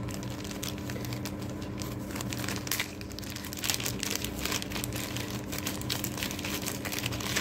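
Product packaging being opened by hand, crinkling and crackling irregularly as it is handled, over a faint steady low hum.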